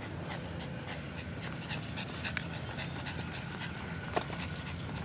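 A dog panting steadily, among light ticks and clicks. A short high whistle falls in pitch about a second and a half in.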